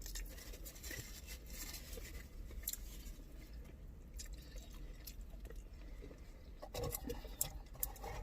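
Faint chewing and lip-smacking of someone eating fried chicken, with scattered small clicks and smacks that come more often near the end.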